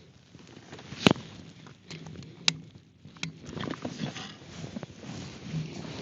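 Handling sounds from a bolt-action rifle at a shooting bench: one sharp knock about a second in, then lighter metallic clicks and rustling.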